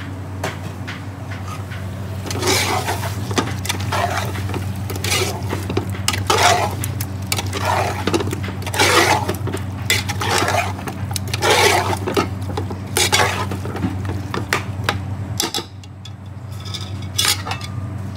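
Metal ladle stirring raw chicken pieces through a wet spiced onion-and-garlic base in a large steel pot. About ten wet, scraping strokes, roughly one every second and a half, stop near the end, over a steady low hum.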